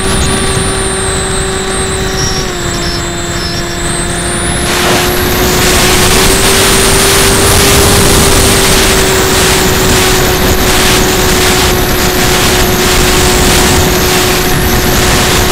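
HobbyKing Breeze radio-control plane in flight, heard from on board: its electric motor and propeller give a steady whine, dipping slightly in pitch a couple of seconds in, over a rush of air on the microphone. About five seconds in the wind rush grows much louder and stays loud.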